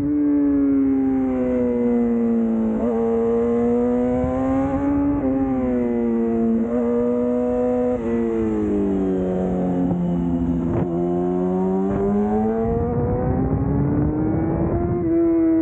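Yamaha R6's 600 cc inline-four running under way, its note falling and rising with the throttle, with a few brief breaks in the note. It dips lowest a little past the middle, then climbs again near the end.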